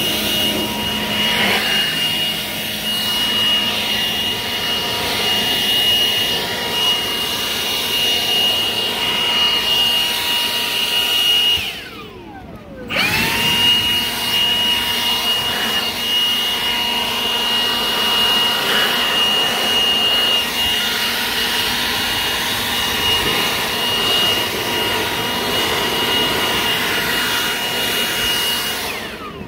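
Milwaukee cordless battery blower running at full speed: a steady high-pitched motor whine over a loud rush of air. About twelve seconds in the trigger is let go and it winds down for about a second, then it quickly winds back up, and it winds down again at the very end.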